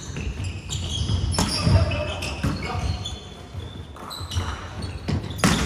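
A basketball bouncing on a court in a game, heard as a run of sharp knocks mixed with short high squeaks.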